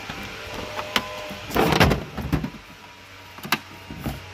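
A hard plastic tool case being handled in a toolbox drawer: a few sharp clicks and knocks, with a brief scraping rustle about a second and a half in.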